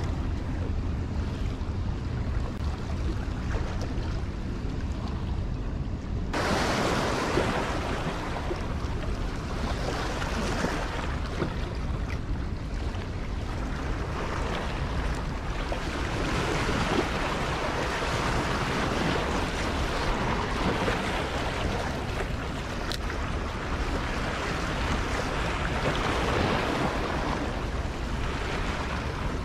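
Steady rush of water, with wind noise on the microphone; the sound turns fuller and brighter about six seconds in.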